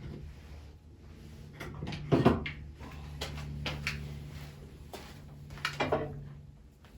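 Knocks and clatter of small clamps being fetched and handled, loudest about two seconds in and again near six seconds.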